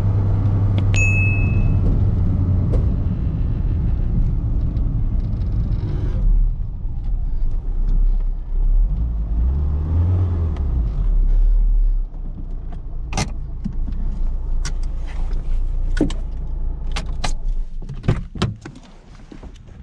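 The Fiat Seicento's 1108 cc four-cylinder petrol engine running steadily, with a short beep about a second in. The sound drops off about two-thirds of the way through, and a series of sharp clicks and knocks follows near the end.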